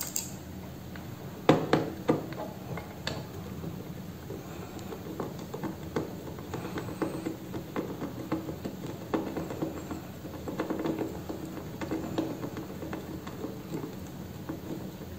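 Hand screwdriver turning screws out of a blender's plastic base: scattered small clicks and scrapes of the driver and screws, with one sharper knock about a second and a half in.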